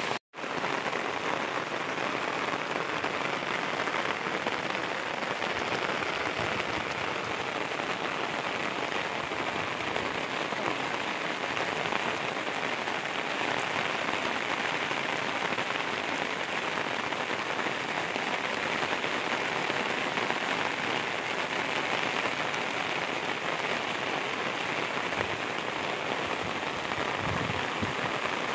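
Steady rain falling, an even, dense patter with no let-up. It cuts out for an instant just after the start.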